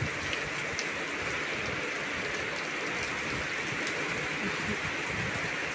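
Steady rain pouring down, an even hiss with scattered drops ticking.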